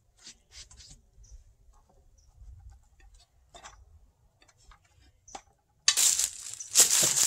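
Faint scattered clicks and rustles, then from about six seconds in loud crunching footsteps through dry leaves close to the microphone, several steps in quick succession.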